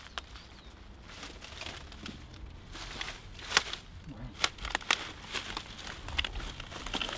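Dry leaf litter and twigs crackling and crunching as someone moves and crouches in them, with a run of sharp snaps in the second half, the loudest just past the middle.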